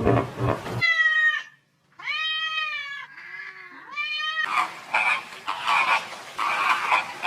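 Cat meowing: a few separate drawn-out meows, each gliding in pitch.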